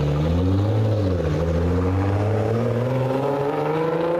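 Nissan GT-R R35's twin-turbo 3.8-litre V6 accelerating away, its note climbing, dropping at an upshift about a second in, then climbing steadily again.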